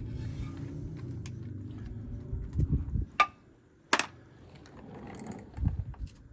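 A low hum, then two sharp clicks about a second apart, followed by a few soft knocks.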